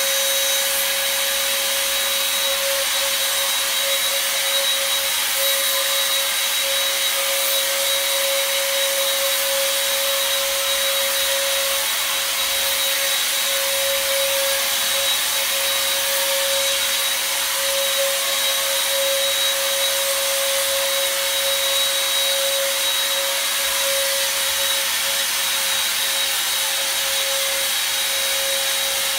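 PowAir Super Sprayer, an electric mist sprayer, running steadily: its motor gives a constant whine over a rushing hiss as it blows product out through its hose.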